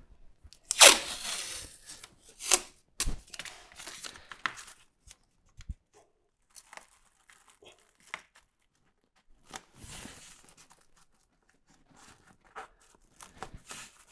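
Blue painter's tape ripped off the roll in one loud tear about a second in, followed by several shorter rips and rustles of tape and plastic masking film being handled and pressed down.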